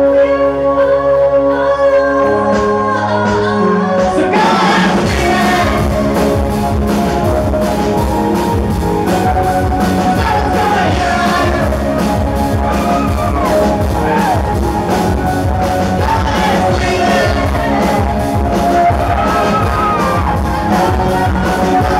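Live band playing a song: a woman sings over keyboard, electric guitar and drum kit. The opening is held chords, and the drums come in with a steady beat about four seconds in.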